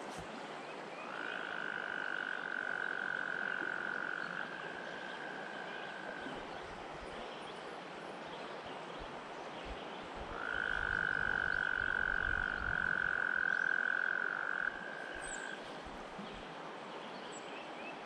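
A frog's long, steady trill, heard twice, each call lasting about five seconds, over the even rush of a shallow river.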